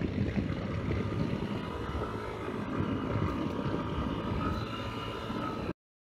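Yamaha XTZ Ténéré 250's single-cylinder engine running at a steady cruise, mixed with wind rush. The sound cuts off suddenly to silence near the end.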